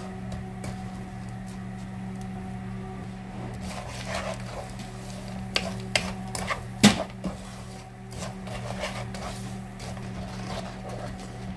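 Wooden spatula scraping and knocking against a nonstick wok while stirring brown sugar as it melts into syrup, with one sharp knock about seven seconds in. A steady low hum runs underneath.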